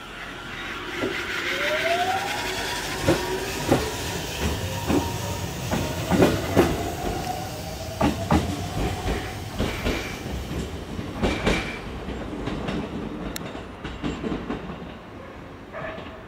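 Aichi Loop Railway 2000 series electric train pulling away from a station. Its motors whine upward in pitch as it accelerates, then hold a steadier tone, while the wheels click over rail joints. The sound fades near the end as the train draws off.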